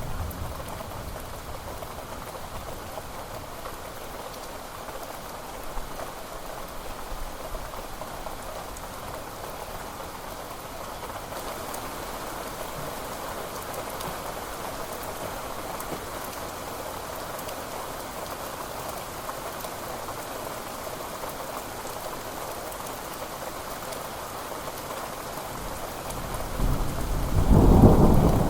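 Steady heavy rain falling. Near the end a thunderclap builds into a loud low rumble.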